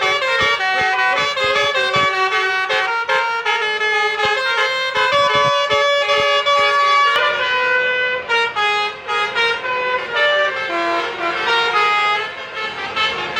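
A bus's telolet basuri musical air horn playing a melody: a chain of loud horn notes changing pitch several times a second.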